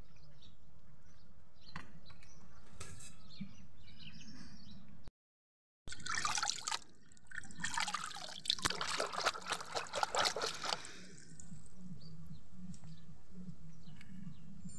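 Water splashing and sloshing as a hand swishes through a plastic tub of water, a dense run of splashes lasting about five seconds around the middle. Quieter drips and faint ticks come before and after.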